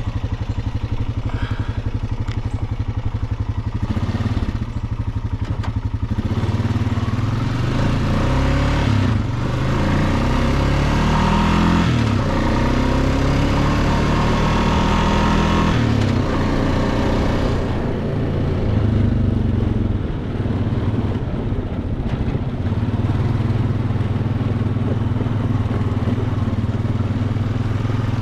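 Honda Rubicon ATV's single-cylinder engine running while being ridden. Its pitch rises and falls with the throttle from about six to seventeen seconds in, then settles to a steadier run.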